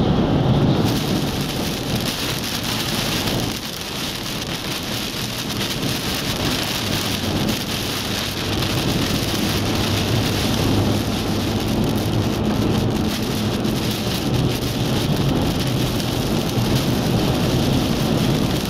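Heavy rain hitting a moving vehicle, a dense steady hiss with the low rumble of the engine and road underneath.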